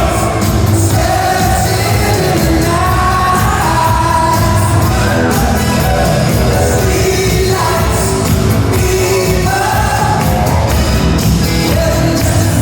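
Pop song with a singer's voice carrying the melody over a full backing track.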